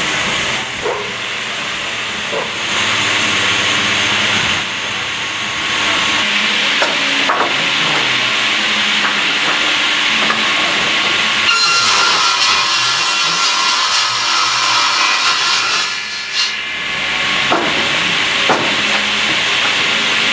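Lignuma MN-315 three-blade edging saw running and cutting timber: a loud, steady hissing saw noise, which grows denser with ringing tones for a few seconds just past the middle, as the blades bite into a board.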